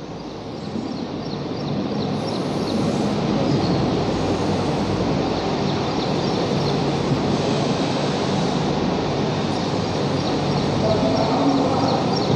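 A steady, rumbling mechanical noise builds over the first couple of seconds and then holds, with faint quick ticks running over it.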